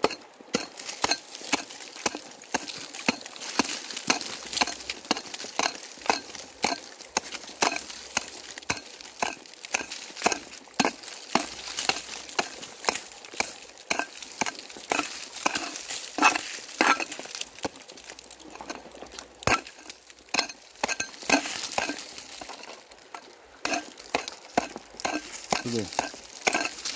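Small hand digging tool scraping and chopping into dry sandy soil, many short scrapes and knocks in an irregular run, digging out a metal detector target.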